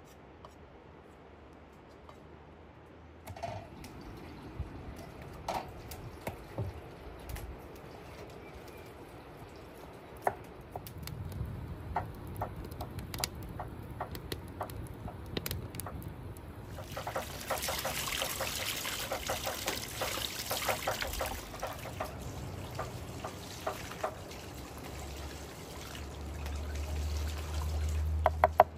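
Wood fire crackling in a stone hearth: scattered sharp pops from a few seconds in, thickening into dense crackle for a few seconds midway.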